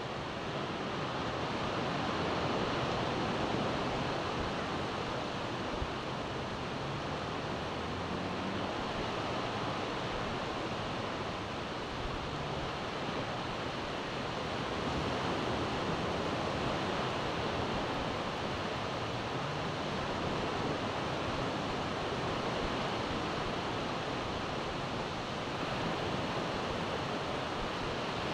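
Ocean surf breaking and washing up a sandy beach: a steady rushing that rises and falls slowly in loudness, with some wind on the microphone.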